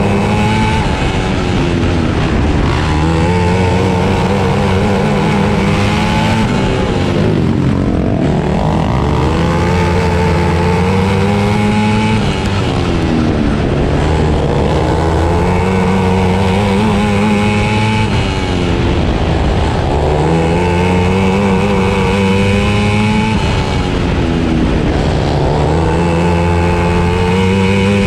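A 450cc outlaw kart's single-cylinder engine, heard from on board, running at racing speed: its pitch climbs as it is held wide open down each straight and drops as it is backed off into each turn, about every five seconds, lap after lap.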